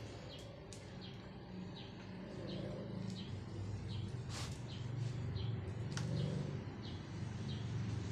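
A tubeless motorcycle tire being worked onto its rim by hand with a wooden lever, giving a few sharp clicks about four and six seconds in over a low steady hum. A string of short high chirps repeats about twice a second throughout.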